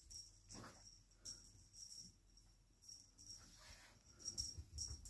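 Small bell on a cat toy jingling quietly in short bursts, several times over a few seconds, as the toy is batted and tugged about.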